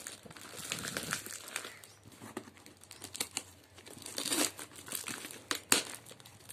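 A parcel being cut open with a knife: the blade scraping and slitting through cardboard and the taped plastic wrapping, with irregular crinkling and tearing. One sharp click near the end.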